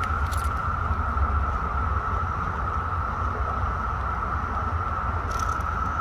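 Chorus of periodical cicadas droning steadily at one high pitch, over a low rumble. Two brief crackles come through, one just after the start and one near the end.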